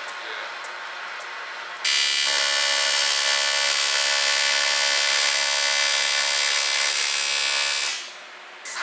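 TIG welding arc buzzing steadily. It strikes about two seconds in, holds for about six seconds, and cuts off near the end.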